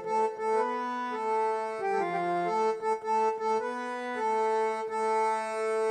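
Instrumental interlude with no singing: a melody of held notes on a reed-toned instrument, moving from note to note over a lower sustained tone.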